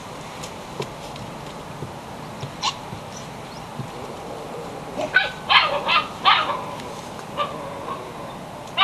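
Belgian Shepherd puppy yipping: a quick run of four or five high yips about five seconds in, with a few single fainter yips before and after.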